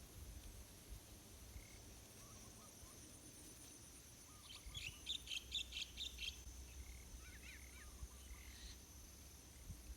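A small bird gives a rapid run of high chirps for about two seconds halfway through, over a low wind rumble and a faint steady high-pitched whine.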